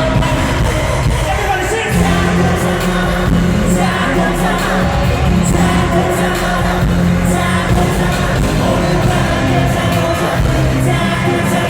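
Amplified live pop music with singing, a heavy steady bass line coming in about two seconds in.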